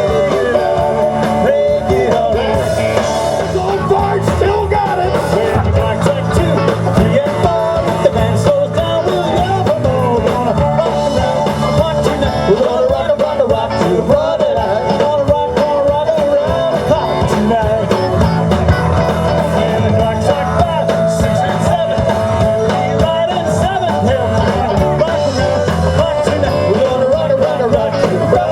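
Live rock and roll band playing continuously, with guitar, drums and singing.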